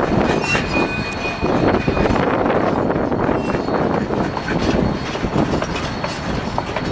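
Narrow-gauge K-36 steam locomotive #489 working past with its passenger coaches: a loud, steady mix of the engine's exhaust and the cars rolling on the rails.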